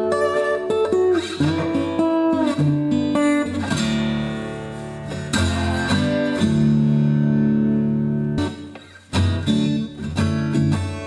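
Acoustic guitar played through a Skysonic T-902 pickup: picked notes and chords with several notes bent upward in pitch, and a short break about eight to nine seconds in.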